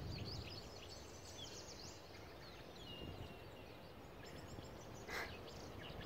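Faint, varied song of a northern mockingbird: a string of short high chirps, sweeps and whistles with an electronic, car-alarm-like quality, including a brief steady whistle about three seconds in. A short rustle sounds just after five seconds.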